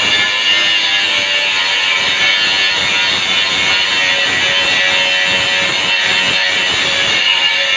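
Angle grinder grinding steel, a steady loud whine with a hiss, likely dressing down the welds.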